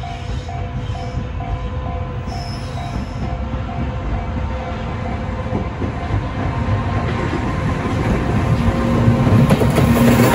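Freight train approaching, its rumble and wheel noise growing louder over the last few seconds. A level-crossing warning alarm pulses about twice a second and stops about three seconds in.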